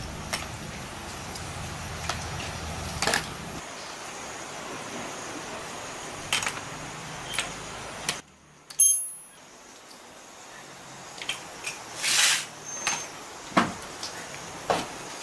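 Scattered metallic clicks, clinks and light knocks of tools and engine parts being handled, a few to a second or two apart, over a steady hiss, with a low hum in the first few seconds.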